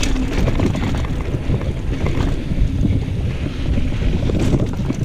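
Wind buffeting the microphone with a steady low rumble and scattered clicks and rattles from a mountain bike riding over a dirt trail.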